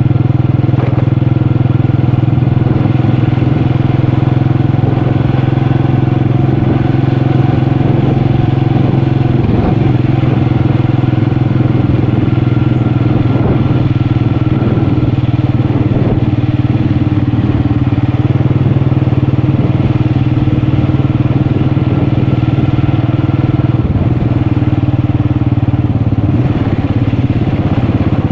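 Motorcycle engine running at a steady pace while riding. A few knocks and rattles come through between about ten and sixteen seconds in.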